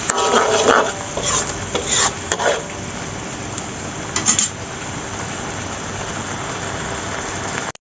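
Spice paste sizzling and frying in a metal wok, with a metal spatula scraping and clinking against the wok several times in the first two seconds or so and once more about four seconds in, then a steady sizzle. The paste is being fried until slightly crisp.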